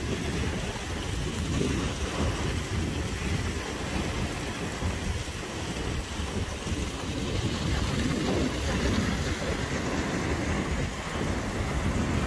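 Heavy rain falling steadily, under a low, uneven rumble of distant rolling thunder.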